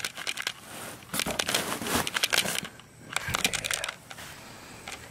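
Crinkling and crackling of cardboard and plastic sheeting being handled and moved about. It comes in a few short spells with quieter gaps between them.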